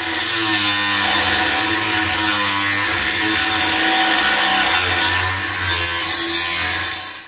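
Angle grinder with a cut-off disc running steadily under load as it cuts through the finned metal casting and resin potting of a failed motorcycle regulator/rectifier held in a vise: a loud, continuous grinding with the motor's hum under it. It stops near the end.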